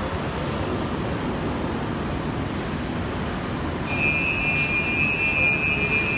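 Steady rumbling hum of an underground metro station, then about four seconds in a loud, steady high-pitched tone from the metro trains at the platform below.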